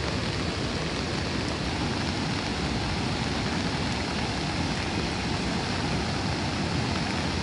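Steady rushing of a swollen river in flood, fast muddy floodwater running high after heavy rain.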